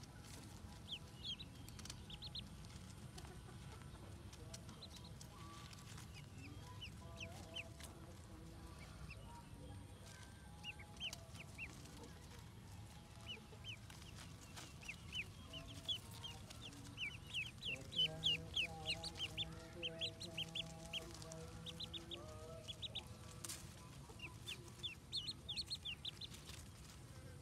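A clutch of ducklings peeping: many short, high-pitched peeps in quick clusters, busiest past the middle and again near the end. A lower, steadier call joins in for a few seconds about two-thirds of the way through, over a faint low hum.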